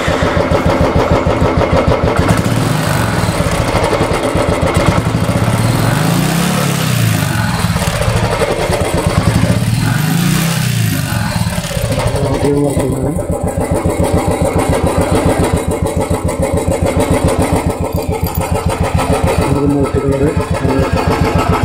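Royal Enfield Bullet single-cylinder engine running at idle with its steady, even thump, revved up and back down twice, about six and ten seconds in.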